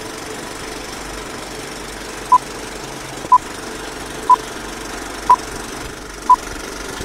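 Film-leader countdown effect: a steady film-projector whirr and clatter, with short high beeps once a second, five in all starting a little over two seconds in.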